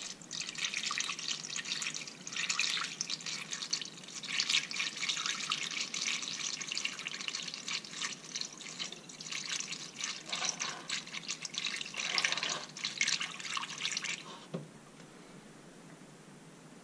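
Engine coolant pouring from a jug through a plastic funnel into a car's radiator: a steady, fluttering splash of liquid as the radiator is refilled after a coolant flush, stopping about two seconds before the end.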